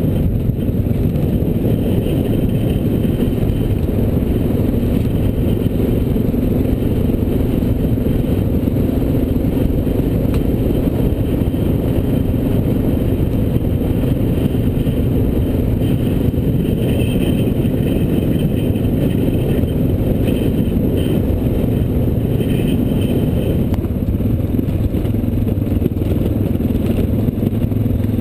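Dual-sport motorcycle engine running steadily at trail cruising speed over gravel, heard from a camera on the bike through wind noise and rattling. The engine note changes about 24 seconds in.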